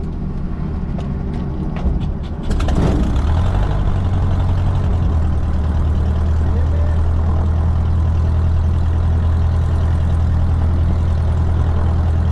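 Cessna 150's four-cylinder Continental O-200 engine cranking on the starter, catching about two and a half seconds in and then running steadily, heard from inside the cabin.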